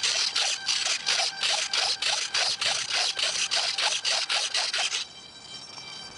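Tiny micro servos on an ultra micro RC model jet driving the thrust-vectoring and control surfaces rapidly back and forth: a run of short whirring strokes, about four a second, that stops abruptly about five seconds in.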